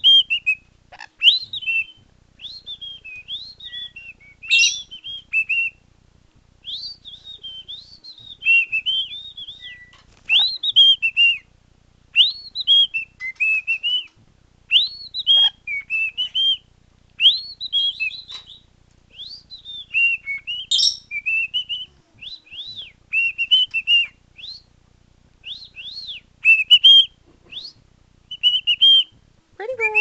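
Male cockatiel whistling: a string of clear, short phrases of notes sliding up and down, with brief pauses between them and a few sharper chirps mixed in.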